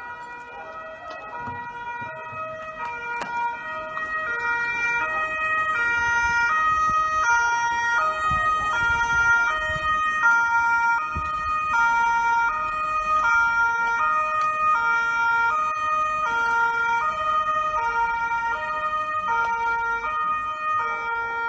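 Two-tone police car sirens sounding high and low notes in turn, with more than one siren overlapping out of step. They grow louder over the first few seconds, then hold steady.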